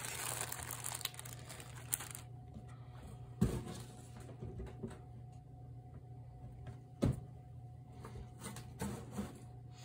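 Plastic bag rustling for about two seconds as leftover clay is put back in it, then two single sharp knocks a few seconds apart, over a steady low hum.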